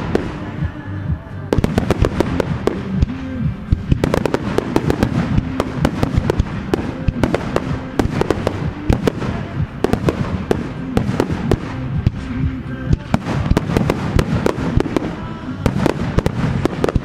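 Fireworks finale barrage: many aerial shells bursting in quick, overlapping bangs, with a short lull about a second in. Music plays along underneath.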